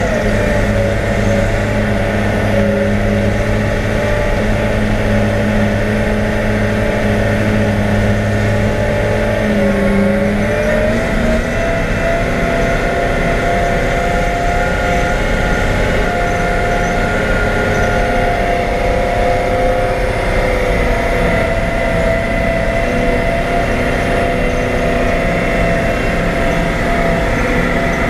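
Caterpillar 769C haul truck's diesel engine running steadily as the truck drives, heard from inside the cab. About ten seconds in the engine note rises in pitch and then holds at the higher note.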